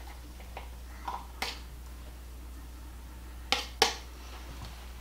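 Metal spoon scraping sliced sausage out of a plastic bowl into a slow cooker: a few light clicks, then two sharp taps about three and a half seconds in, a third of a second apart.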